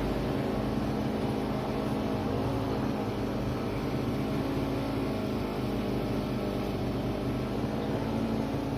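Brush cutter fitted with nylon trimmer line, its engine running steadily at an even speed.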